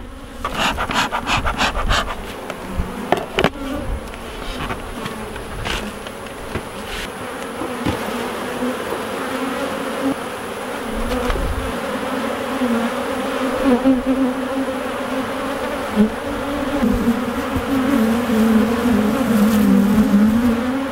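Honey bees buzzing around an open hive: a steady, wavering hum of many bees in the air, the colony disturbed by the hive being opened for inspection. A quick run of clicks in the first two seconds and a few single knocks after it.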